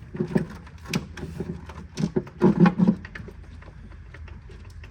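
Irregular knocks and clunks of heavy parts being handled and set into place, loudest in a cluster about two and a half seconds in, then only a low steady background.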